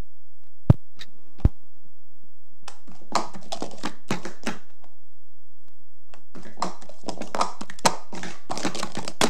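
Plastic speed-stacking cups clattering in two quick runs of rapid taps and clicks as a 3-6-3 stack is built up and then brought back down. Two sharp knocks come before the first run.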